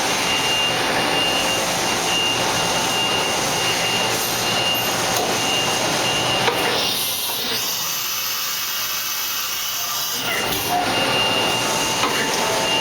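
Fadal VMC5020A vertical machining center running through an automatic tool change, with a steady machine hum and an intermittent faint whine. About seven seconds in, a hiss takes over for roughly three seconds.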